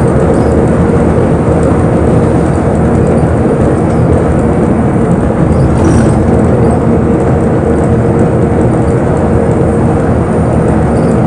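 Interior noise of a moving bus: a steady low rumble of engine and road with a constant drone, and a faint brief tick about halfway through.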